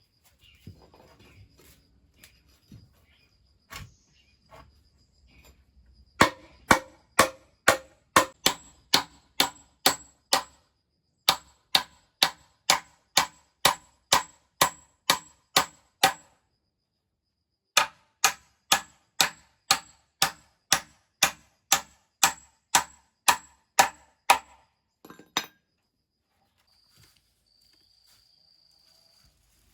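A hammer striking in a steady rhythm, about two blows a second, each with a short ring. The blows come in two long runs, with a pause of a second or two between them, as in driving nails into wood.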